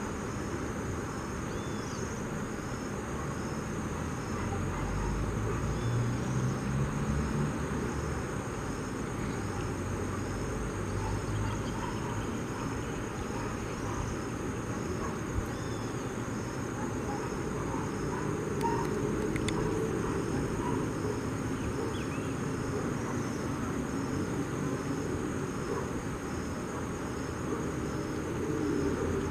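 River water rushing steadily over rocky rapids, with insects chirping in a regular high-pitched rhythm above it.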